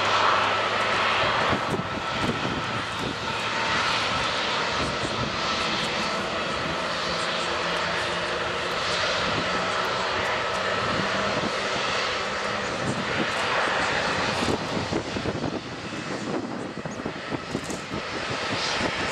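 Airbus A330-243's two Rolls-Royce Trent 700 turbofans at taxi power: a steady jet whine over a continuous rushing noise as the airliner taxis past.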